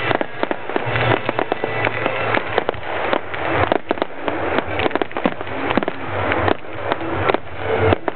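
Fireworks finale: a dense, continuous barrage of bangs and crackles from many shells bursting at once, several reports a second.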